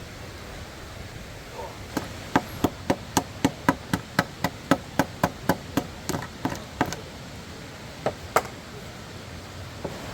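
A hammer striking wood in a quick, even run of about fifteen blows, roughly three or four a second, then a handful of scattered blows.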